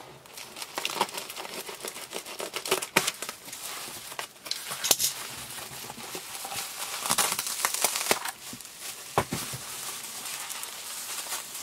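Bubble wrap and brown paper wrapping crinkling and rustling as a parcel is cut open and the wrapped item pulled out by hand, in irregular crackles with a few sharper snaps.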